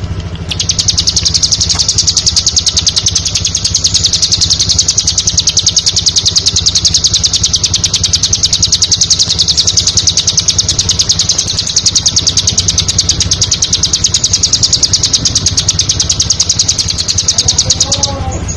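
Bar-winged prinia (ciblek) singing a long, rapid run of high repeated notes that stops shortly before the end, over a steady low hum.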